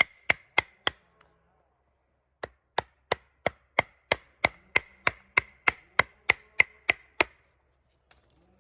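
A chisel being struck with a wooden block to carve wood: sharp blows, each with a short ring, four in quick succession, then after a pause a steady run of about fifteen more at roughly three a second.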